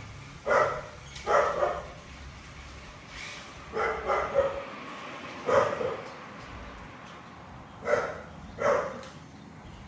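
A dog barking: about seven single barks, spaced a second or two apart.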